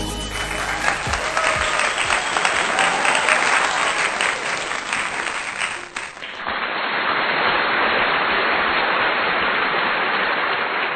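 Applause, dense and steady; about six seconds in it switches abruptly to a duller-sounding stretch of applause.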